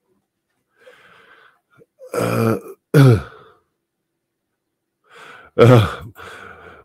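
A man's short vocal sounds close to the microphone: two brief sounds falling in pitch about two and three seconds in, and another near the end, with breaths between.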